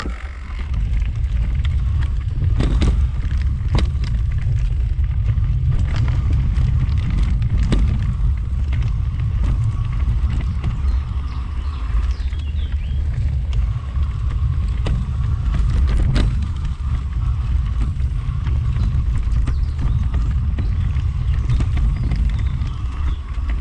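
Mountain bike riding along a dirt forest singletrack: a steady low rumble of the tyres and trail vibration on the bike-mounted camera, with scattered sharp knocks and rattles as the bike goes over roots and stones.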